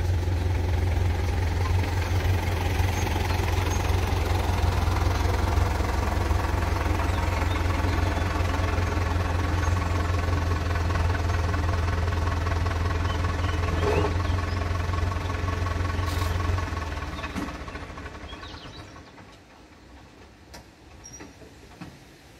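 Tractor diesel engine running steadily with a deep hum, then switched off about three-quarters of the way in, winding down over a couple of seconds to quiet.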